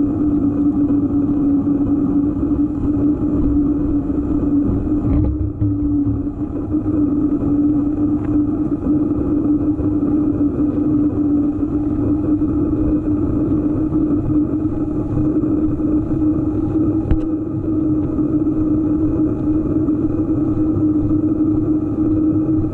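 EVO GP PRO giving off a steady humming noise: one constant pitch over a low rumble, with a faint click about five seconds in and another about seventeen seconds in.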